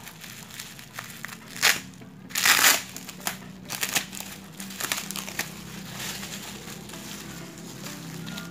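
Plastic bubble-wrap packaging crinkling and rustling as it is handled and unwrapped by hand, with two louder crackling bursts around two seconds in.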